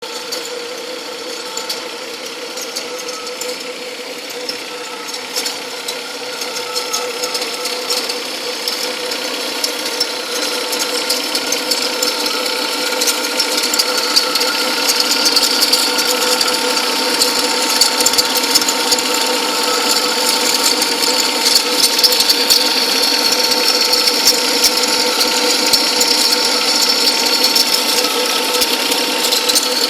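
2003 Cadillac CTS 3.2 V6 engine running with a weird rapid mechanical ticking and chattering that the owner traces to the belt. The noise swells louder from about eight seconds in and stays up.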